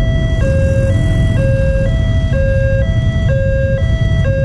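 A railway level-crossing warning alarm sounds continuously: an electronic two-tone signal that alternates a higher and a lower tone, each about half a second long. It plays over a steady low rumble.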